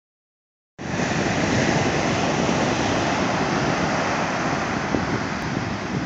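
Ocean surf breaking and washing up the beach in a steady rush. Wind buffets the microphone with an uneven low rumble. The sound starts just under a second in.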